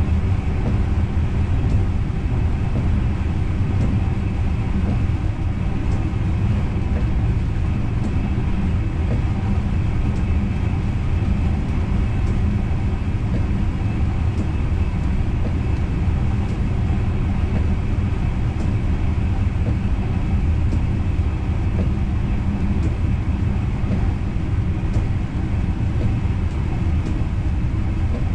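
Steady low running rumble of an NS Intercity train heard from inside the driver's cab as it runs along the track, with a few faint clicks now and then.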